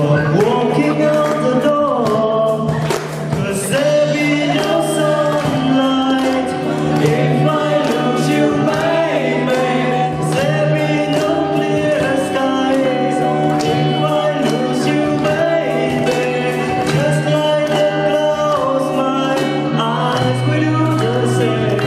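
A song playing: singing over a band, with a steady beat and sustained bass notes.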